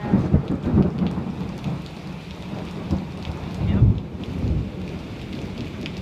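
Heavy rain falling in a storm, with strong wind gusts buffeting the microphone in irregular low surges, strongest in the first second and again about four seconds in.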